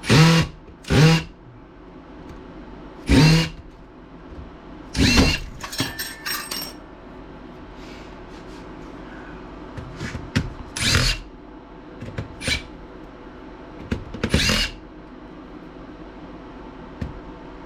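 An electric screwdriver or drill run in short bursts of about half a second, about six times, to back out the screws of a laptop case, with small clicks and rattles between the bursts.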